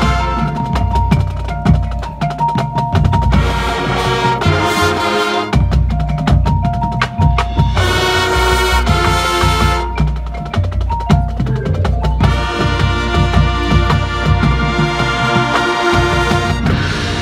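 High school marching band playing a loud, percussion-heavy passage: quick snare and bass drum strokes and rolls over held horn chords, with the fuller chords swelling in about halfway through and again for the last few seconds.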